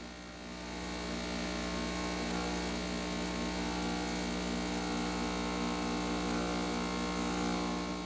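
Gaggia Brera automatic espresso machine running its cleaning rinse cycle: a steady electric pump hum that starts about half a second in and stops near the end.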